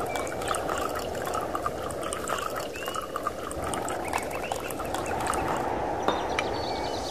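Outdoor ambience of many small animal calls: a dense chorus of short chirps and croaks over a steady rushing hiss.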